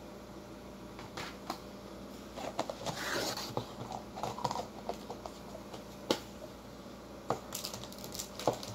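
Plastic takeaway food containers being handled and set down on a tabletop: crinkling and rustling in the middle, with scattered sharp clicks and taps, the last near the end as a lidded tub is put down. A faint steady hum runs underneath.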